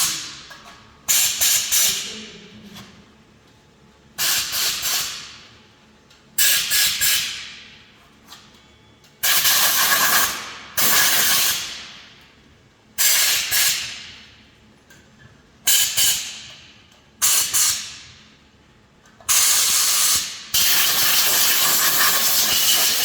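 Repeated bursts of hissing from a compressed-air gun cleaning an engine crankshaft, each starting suddenly and trailing off, about nine in all, with the last one held for several seconds near the end.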